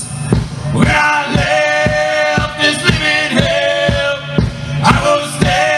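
A live country band plays a song on acoustic guitar, electric guitar, bass and drums, with a steady beat about twice a second and singing over it.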